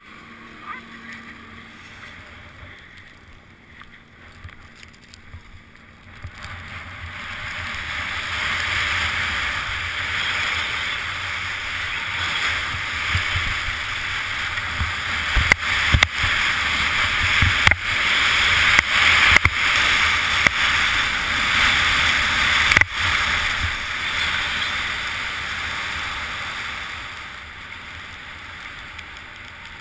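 Skis sliding and scraping down a snow slope, with wind rushing over the camera's microphone, quieter at first and growing loud after about six seconds as speed builds. Several sharp knocks come in the middle of the run, and the rush eases off near the end.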